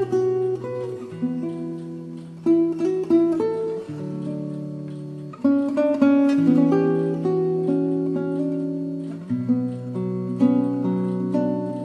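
Solo classical guitar fingerpicked, with held bass notes ringing under a plucked melody and fuller chords struck every few seconds: the instrumental introduction of a slow ballad, before the singing comes in.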